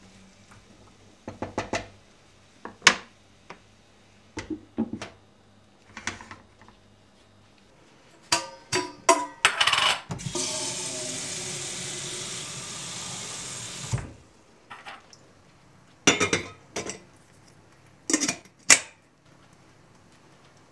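Dishes and cutlery clinking and knocking in scattered bursts. About halfway through, a tap runs for about four seconds and then shuts off suddenly.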